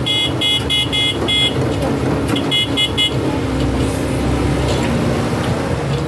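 Sany hydraulic excavator's diesel engine running steadily under work while its warning alarm beeps rapidly, about three beeps a second. The beeping stops after about a second and a half, comes back briefly at about two and a half seconds, then only the engine is left.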